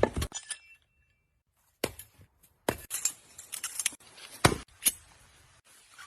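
A string of sharp, irregular clinks and knocks, with a gap of about a second shortly after the start.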